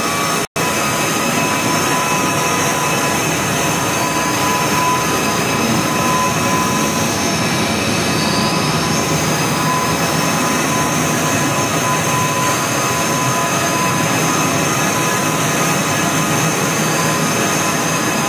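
Open-end rotor spinning machine with 600 spinning positions running at full speed: a loud, steady whir with a constant high whine.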